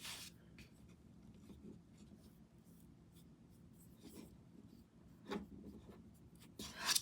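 Paintbrush strokes brushing a gray glaze wash onto a small canvas: faint, irregular scratchy swishes, with a few louder strokes in the second half.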